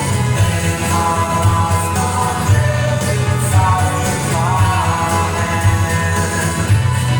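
Indie rock band playing with guitars, bass and drums, and a voice singing over them.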